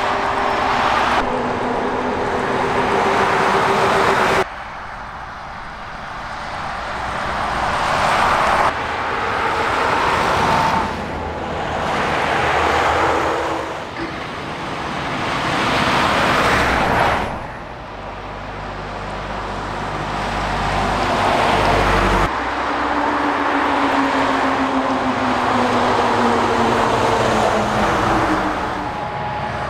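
A series of heavy diesel trucks passing one after another: engine and tyre noise swells as each approaches and fades as it goes by, with abrupt cuts between passes.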